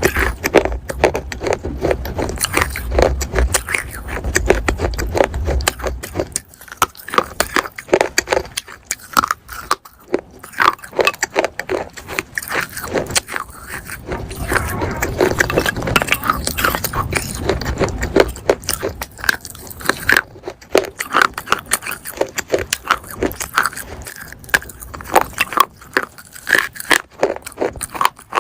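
Close-miked biting and chewing of hard, brittle pieces of baked clay pot: a rapid, unbroken run of gritty crunches and crackles, with a low rumble under some stretches.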